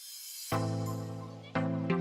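Background music: soft sustained instrumental chords, a new chord struck about half a second in and another about a second later.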